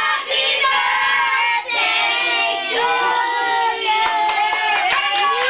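A group of voices, children among them, singing together in long held notes, with hand clapping in the second half.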